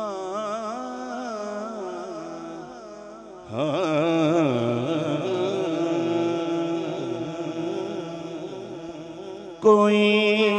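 A man singing a naat (Urdu devotional poem) into a microphone, drawing out long melodic held notes with a wavering quiver. The singing gets markedly louder about three and a half seconds in.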